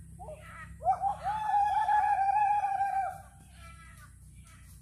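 A rooster crows once: a long, wavering call of about two and a half seconds. Crows caw briefly before and after it.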